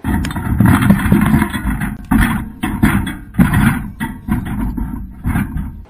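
Wire crab ring being hauled up with a GoPro strapped inside it: irregular knocking and rattling of the ring and bait cage against the camera housing, with bursts of hiss from water.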